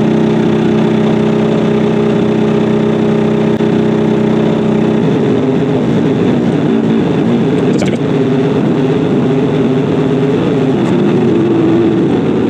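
Qidi X-Max 3D printer's stepper motors buzzing loudly during fast bed leveling, with the Y axis straining to move against shipping clips still left in place. The steady buzz turns to a wavering tone about five seconds in.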